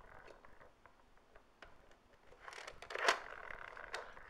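Plastic pointer of an electronic See 'n Say toy being turned by hand: faint plastic clicks, then a louder scrape with a sharp knock about three seconds in.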